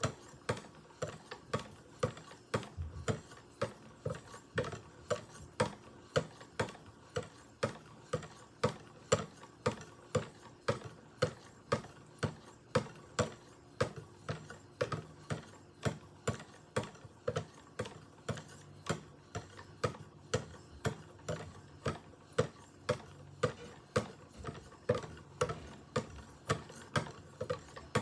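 Rod-guided 3000-grit sharpening stones stroked along a Spyderco Rock Salt blade's edge with light pressure: a steady run of short, light ticks about twice a second as each stroke meets the steel.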